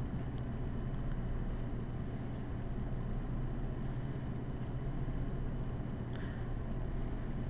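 Steady low hum of background room noise, with faint scratches of a pencil writing on paper.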